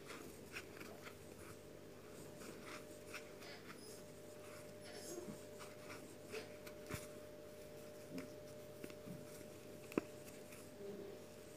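Faint scratching and rustling of a crochet hook pulling yarn through stitches, with scattered small clicks and one sharper click about ten seconds in, over a steady low hum.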